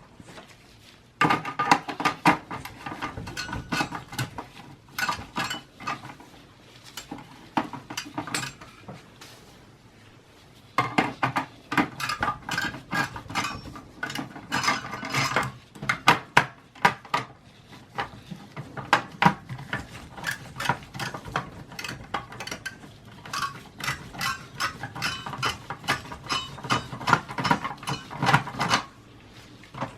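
Rapid clicking and rattling of metal and plastic desktop PC parts being handled and worked on during disassembly, in two long stretches with a short pause about ten seconds in.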